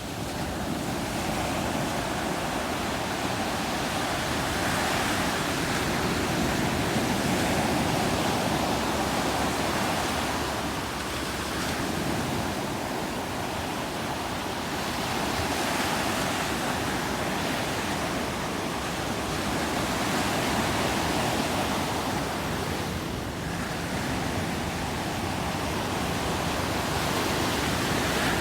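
Ocean surf breaking on a sandy beach: a continuous rushing wash of waves that swells and eases every few seconds.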